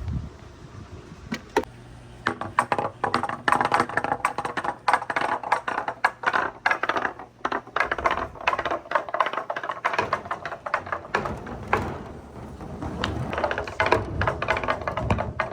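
Marbles rolling and clattering down a wooden marble run: a quick patter of clicks and knocks that thickens after a couple of seconds, thins out around the middle and picks up again near the end.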